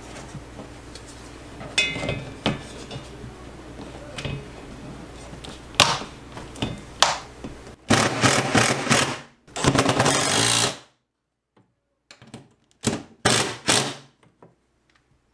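Cordless drill driving screws through a steel TV wall-mount bracket into the wall. The drill runs in a few loud stretches of a second or so, starting about eight seconds in, with two short bursts near the end. Before it come light clicks and knocks as the bracket and level are handled.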